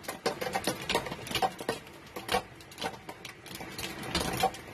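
Hail coming down, hailstones striking hard surfaces in a dense, irregular clatter of sharp ticks and knocks.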